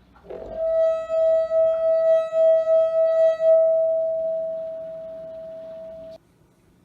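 A rubbed rim singing one sustained ringing tone. It swells in with a short upward slide, wavers in loudness a few times a second, then slowly fades and cuts off suddenly about six seconds in.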